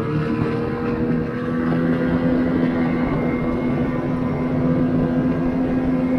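Ski-Doo Expedition Xtreme snowmobile engine running steadily at trail speed, its pitch edging slightly upward.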